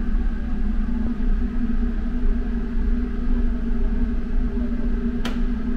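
Steady low drone of a car ferry's engines and machinery heard inside the ship, with a constant hum. A single short click near the end.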